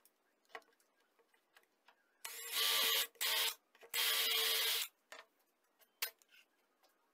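Greenworks cordless drill running in three short bursts with a steady motor whine, boring into the wooden arm of a jig. Light knocks and clicks of tools being handled and set down come before and after.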